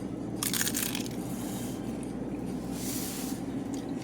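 Crunchy Doritos nacho chips being bitten and chewed: two short bursts of crunching, about half a second in and again near three seconds, over a steady low background hum.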